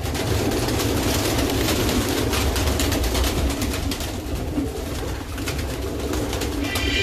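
Baku fighting pigeons cooing, over a low rumble with scattered clicks. Music comes in near the end.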